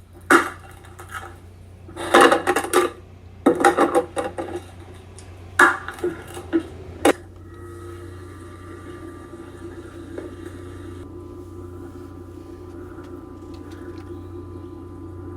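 Dishes and utensils clattering in several short bursts over the first seven seconds, then a steady hum with a few held tones.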